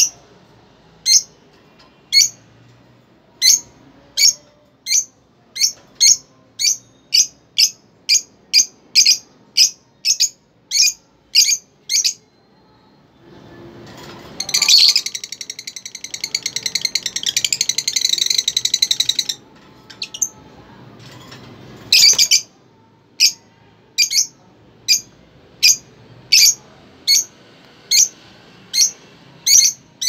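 Caged lovebirds calling: a steady run of short, sharp, high chirps, about one or two a second, with a louder stretch of dense, continuous chatter about halfway through.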